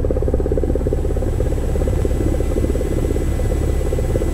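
Cessna 172 Skyhawk's piston engine and propeller running steadily at low taxi power, heard inside the cabin as a loud drone with a fast, even pulsing beat.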